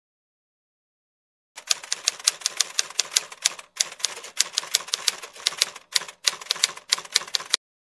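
Typewriter sound effect: rapid key clacks, several a second, with two short pauses, starting about a second and a half in and stopping shortly before the end, as warning text is typed out on screen.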